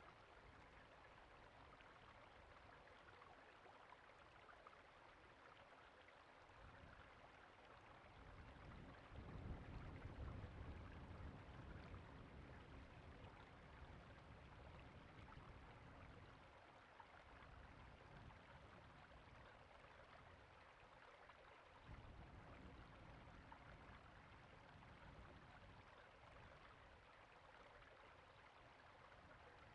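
Faint, steady rush of a flowing creek. A low rumble swells for a few seconds about nine seconds in.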